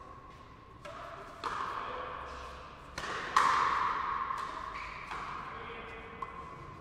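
Frontenis rally: the rubber ball being struck by rackets and smacking against the front wall of an indoor court, about six sharp hits, each with a long echo, the loudest a little past the middle.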